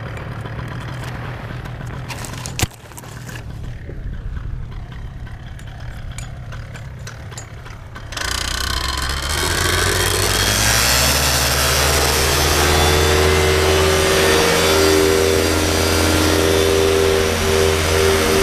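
Paramotor engine running at low power with a steady low hum, broken by one sharp click about two and a half seconds in. About eight seconds in the sound jumps abruptly to a much louder engine-and-propeller noise that rises in pitch and then holds steady at high power for the takeoff run.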